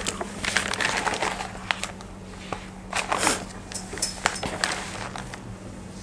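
Paper and book pages rustling as they are handled, with a few light clicks and knocks, the loudest swish about three seconds in, over a steady low hum.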